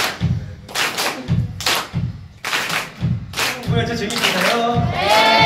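Group hand-clapping in a steady rhythm over a regular low beat, joined by a chorus of voices singing from a little under four seconds in, loudest near the end.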